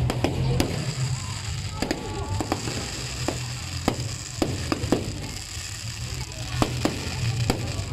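Aerial fireworks bursting and crackling, a scatter of sharp cracks at irregular intervals.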